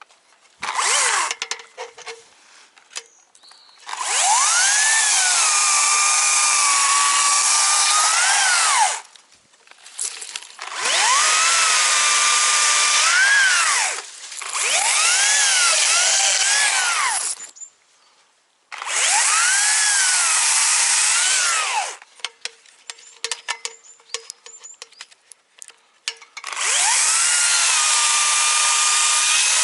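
Chainsaw cutting branches in five bursts of a few seconds each, its pitch rising and dipping as the chain bites into the wood and frees. Between cuts it stops, leaving scattered clicks and snaps.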